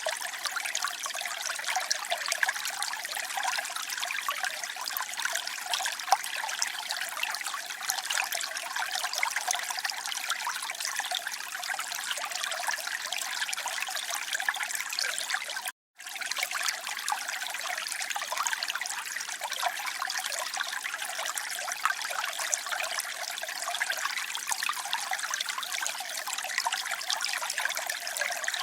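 Water trickling and splashing steadily, a bright, busy patter with little low rumble. A little past halfway the sound cuts out completely for a split second, then carries on unchanged.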